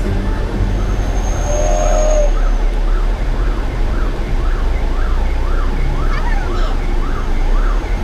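An emergency vehicle's siren in a fast yelp, rising and falling about twice a second, starting about three seconds in, over a steady low drone of road and engine noise.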